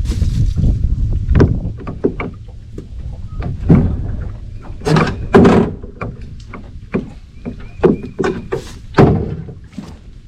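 Paddling a small boat: irregular knocks and thuds of the paddle and gear against the hull, loudest about halfway through and near the end, with wind rumble on the microphone at first.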